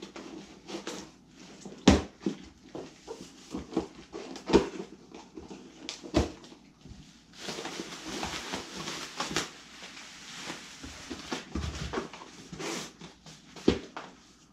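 Long cardboard box being opened by hand: a run of knocks, clicks and taps as the tape is cut and the flaps are worked open, with a few sharper thuds and a longer stretch of tearing and scraping in the middle.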